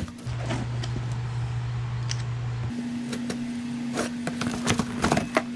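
Box cutter slicing packing tape and cardboard being handled: a run of scratchy cuts and rustles, mostly in the second half. Under it is a steady low hum that jumps higher about halfway through.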